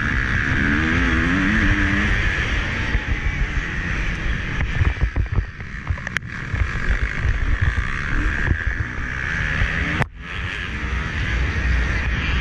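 Motocross dirt bike engine running hard, its revs rising and falling, mixed with wind buffeting and chassis rattle as heard through an onboard GoPro. The level dips sharply for a moment about ten seconds in.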